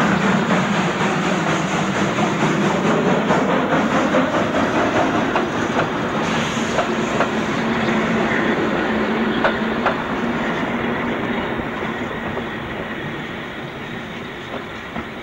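Steam tank locomotive hauling passenger coaches away, with steam hissing from around the cylinders and a few wheel clicks over rail joints. The sound fades as the train moves off toward the end.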